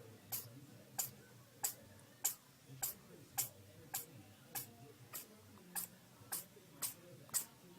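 A small animal sneezing over and over in a quick series of tiny, sharp sneezes, a little under two a second.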